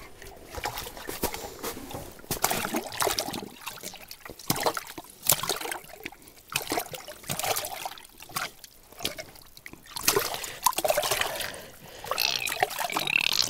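Water sloshing, splashing and dripping in an ice-fishing hole in irregular bursts as a lake trout is brought up through it and handled in the water.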